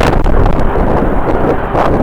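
Strong wind buffeting the microphone: a loud, gusty rumble that rises and falls without a break.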